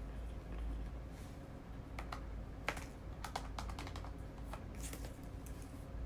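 Keys being tapped: an irregular run of about a dozen sharp clicks over roughly three seconds, starting about two seconds in.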